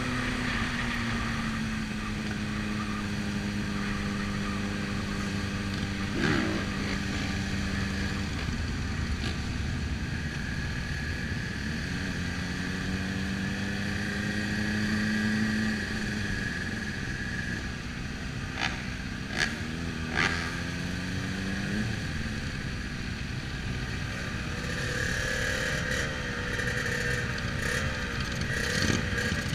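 Motorcycle engine heard from on board, running at low revs in a slow pack of motorcycles, its pitch steady for stretches then dropping and rising again with throttle and gear changes, with the engines of the surrounding motorcycles mixed in. A few short sharp clicks around the middle.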